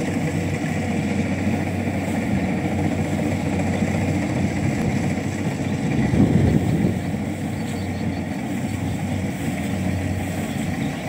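Engine of a rice harvesting machine running steadily with an even drone, growing briefly louder about six seconds in.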